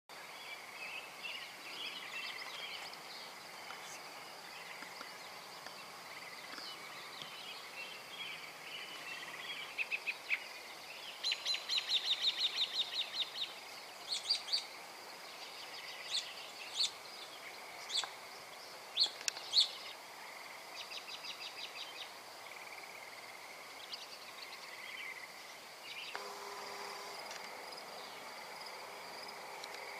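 Evening outdoor ambience: birds calling, with a rapid trill of chirps about eleven seconds in and several single sharp chirps after it, over a steady high insect chirring.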